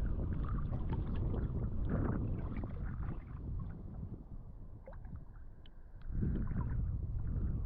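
Water sloshing and splashing around a spearfisher swimming in a river, full of small crackles, going quieter from about three seconds in and coming back suddenly about six seconds in.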